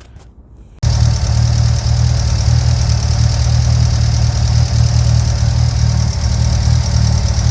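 Mitsubishi Lancer Evolution VIII engine idling steadily. It cuts in suddenly about a second in.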